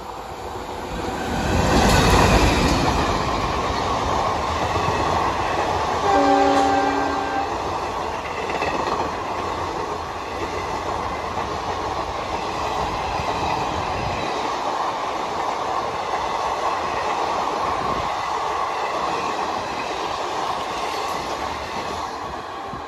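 A diesel-hauled passenger train passing at speed. The locomotive goes by loudest about two seconds in, a short horn blast sounds around six seconds in, and then the coaches run past in a steady rush of wheels on rail.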